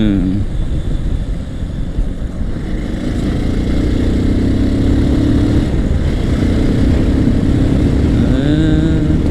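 Motorcycle engine running steadily while riding, a dense low rumble with a steady engine note from about three seconds in.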